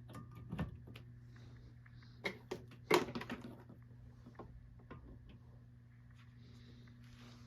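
Scattered light clicks and knocks of hands handling objects, the sharpest about three seconds in, over a low steady hum.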